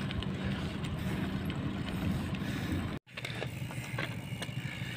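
Mountain bike rolling over a concrete pier, its freewheel hub ticking as it coasts, under a steady low rumble of wind on the microphone. The sound cuts out completely for an instant about three seconds in, then the same rolling and ticking carry on.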